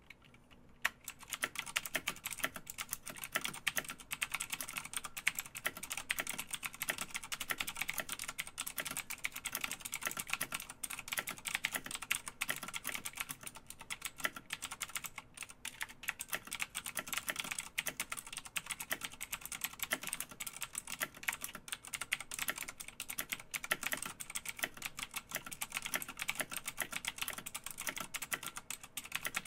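Computer keyboard being typed on: rapid, continuous key clicks, starting about half a second in.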